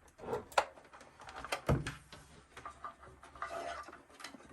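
Scattered knocks and clicks of equipment and cables being handled on a desk, with the loudest knock a little under two seconds in.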